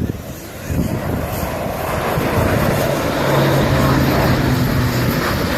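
Airbus A400M's four Europrop TP400 turboprop engines droning in flight, growing louder from about a second in, with a steady low hum.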